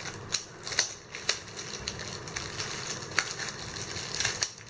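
Thin clear plastic bag crinkling and rustling as it is gathered and pulled tight around a camera lens by hand: irregular crackles with a few sharper cracks.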